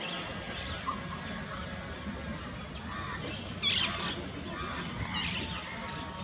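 Birds chirping in short repeated calls, the loudest bunch about midway and another shortly after, over a steady low outdoor rumble.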